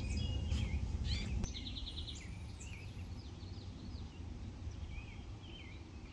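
Several songbirds chirping, with a quick high trill about a second in. Under them, a low rumble on the microphone that eases off after the first second and a half.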